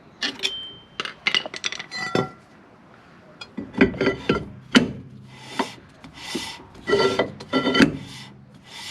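Metal clicks with short ringing tones, then a series of scraping rubs about every 0.7 s, from adjusting a rear drum brake: the star-wheel adjuster being turned to set the shoes against the drum, with metal tool on metal parts.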